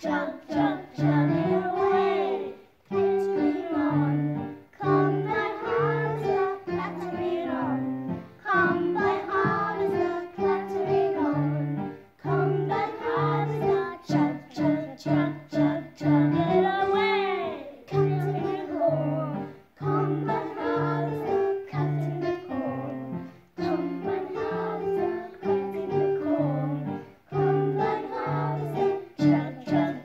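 A small group of young children singing a song in unison over an instrumental accompaniment with a steady, repeating bass line.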